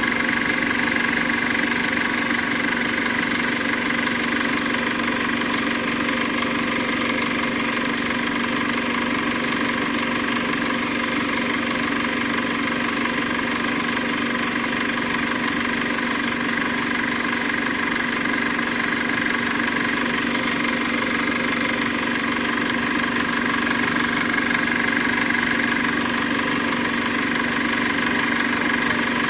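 Film projector running: a steady mechanical whirr with a constant hum that does not change.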